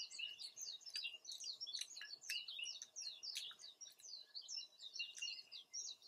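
Small birds chirping in a continuous chorus of short, high, overlapping notes.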